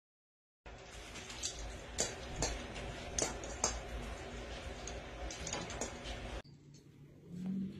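Light, irregular clicks and clinks over a low background: a cat batting at a hanging Christmas-tree bauble, setting the ornaments ticking against the branches. The clicks stop abruptly near the end, where the sound drops.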